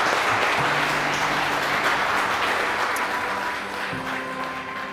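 Crowd of guests applauding, the clapping gradually dying away, over instrumental music with long held low notes.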